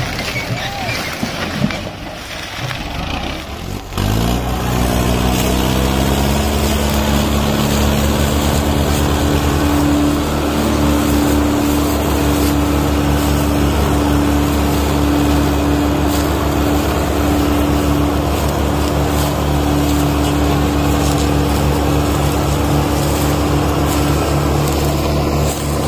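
Mahindra Arjun 555 DI tractor's diesel engine revving up about four seconds in, then running hard at high, steady revs, the tractor working to pull the stuck, loaded sugarcane trolley. Before that, quieter mixed engine noise.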